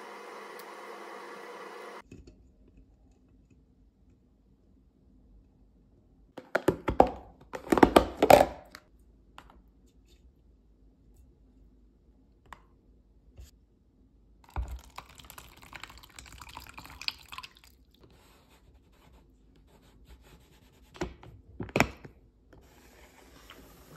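Kitchen handling sounds: a steady hum cuts off about two seconds in, then come clusters of clattering knocks as peeled boiled eggs are set into a plastic food container. A softer stretch of liquid sound follows, and near the end the container's clip-lock lid clicks shut.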